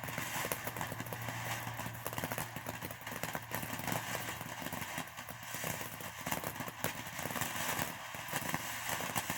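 Cannon Fireworks Tri Colour Fountain, a ground fountain, burning with a steady spraying hiss and many fast crackles throughout.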